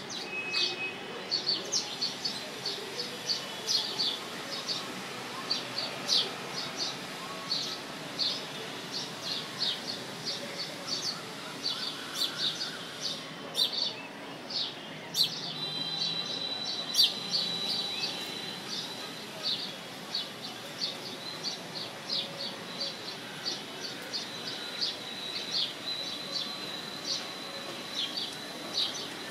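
Small birds chirping: short, sharp, high chirps repeating several times a second, with a steady high trill held for a few seconds around the middle and again near the end, over faint steady background noise.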